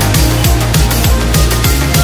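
Loud electronic background music with a fast, heavy beat and deep bass notes that drop in pitch.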